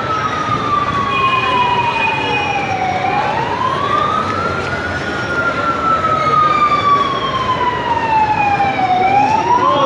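Emergency siren wailing in a slow cycle, rising over about two seconds and falling over about four, twice. A fainter, higher siren wails along with it.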